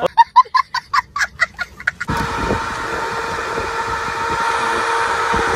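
A rapid run of about eight short pitched calls, roughly four a second, for about two seconds, then an abrupt cut to a tractor engine running steadily with a constant drone.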